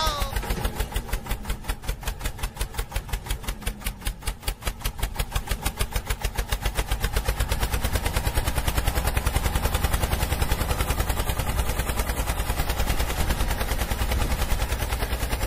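Tractor engine sound, a rapid, even chugging of about ten beats a second that grows louder and denser about halfway through.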